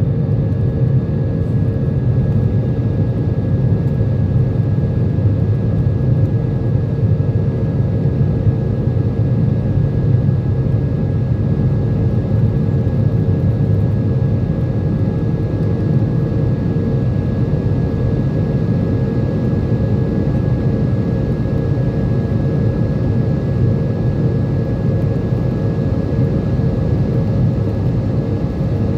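Jet engine noise heard inside an airliner's cabin during the climb: a steady deep rumble with a faint steady whine above it.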